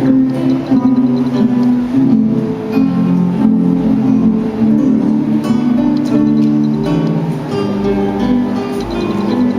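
Instrumental music without singing: held notes and chords, played between sung passages.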